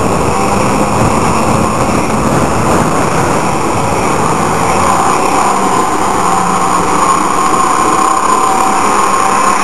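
Off-road jeep on the move: its engine running together with tyre and body noise at an even level.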